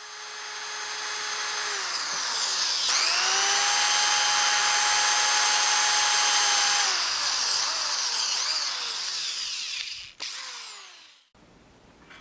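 Hand-held electric drill boring a small hole through a thin metal lid with a twist bit. The motor whine builds, jumps to a higher speed about three seconds in and holds, then winds down with a few short revs and a brief restart before stopping near the end.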